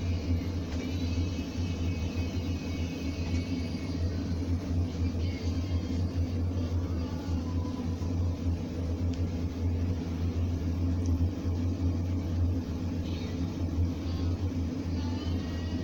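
Blizzard No. 2 pressure lantern burning at full output, its burner giving a steady low roar.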